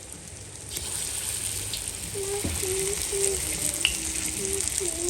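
Puff puff dough balls deep-frying in hot oil, a steady sizzle that grows louder about a second in.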